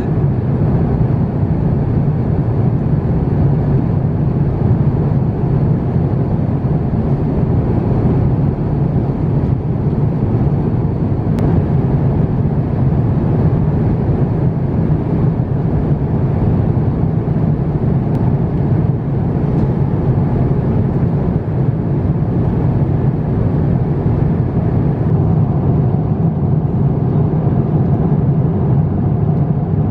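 Passenger-cabin noise of an Airbus A350-900: a steady, even low rumble of the engines and airflow.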